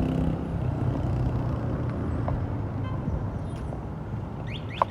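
A car's engine and road noise on a town street, fading away as it moves off. A few short high chirps come near the end.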